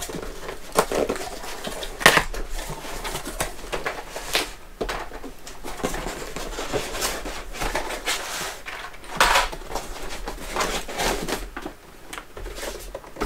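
A cardboard shipping box being opened and unpacked by hand: taped flaps pulled open and cardboard and packaging handled. Irregular crackles, scrapes and rustles, with the sharpest noises about 2 seconds in and again about 9 seconds in.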